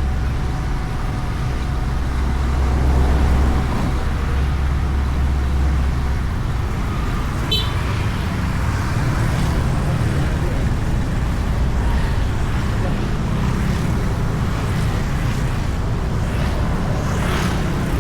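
Honda Beat scooter riding through traffic: steady road and wind noise on the bike-mounted camera, with other vehicles around. A heavy low rumble fills the first few seconds and then eases, and there is one short sharp tick about seven and a half seconds in.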